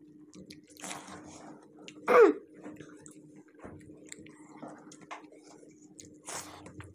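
A person clears their throat once, a short throaty sound falling in pitch about two seconds in, the loudest sound here. Around it are soft sounds of eating rice by hand and two breathy puffs of air, one about a second in and one near the end.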